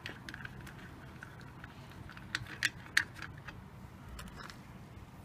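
Faint clicks and small rattles as a propeller's retaining nut is unscrewed by hand from the motor's propeller shaft and the propeller is handled, with a few sharper clicks a little past the middle.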